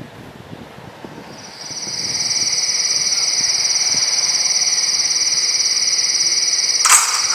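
Cicada buzzing: a shrill, finely pulsing trill that swells in about a second and a half in and then holds steady. A short burst of noise comes near the end.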